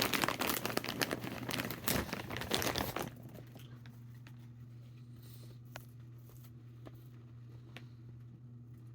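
Popcorn bag crinkling as it is handled, a dense crackle for about the first three seconds that then stops, leaving a steady low hum with a few faint clicks.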